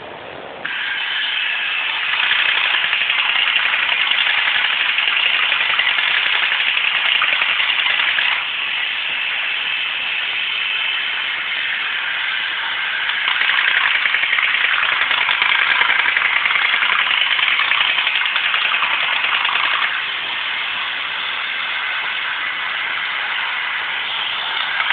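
Vintage Horikawa Super Astronaut tin toy robot running on two AA-size batteries: its small electric motor and gearbox whirr and rattle as it walks and spins. The sound starts about half a second in and gets louder and softer a few times.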